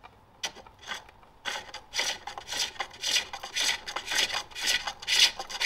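Hand-forged hook tool cutting green wood on a foot-driven pole lathe while hollowing a bowl: a rasping shaving sound on each stroke. A few light cuts start about half a second in, then it settles into about two cuts a second. The shavings are good but the cut is not smooth, with the thin hook jumping around in the bowl.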